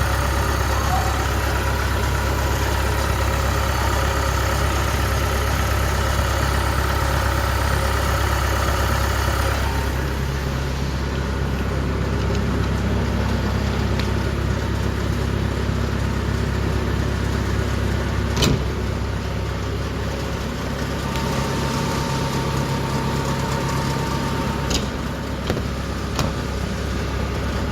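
Kubota DC-70 combine harvester's diesel engine running steadily. About ten seconds in, the higher-pitched running noise drops away and leaves a lower drone, with one sharp knock past the middle and a couple of lighter clicks near the end.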